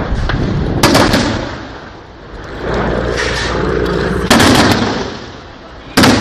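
Weapons fire in combat: three loud, sharp reports, about a second in, a little past four seconds and near the end, each trailing off in a rolling echo, over a continuous low rumble.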